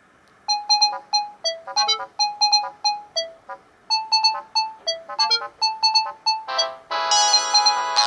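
A Siemens Xelibri ringtone playing through the small speaker of a Samsung GT-E2121B mobile phone. It starts about half a second in as a melody of short, crisp beeping notes. About seven seconds in it turns into a fuller, denser sound.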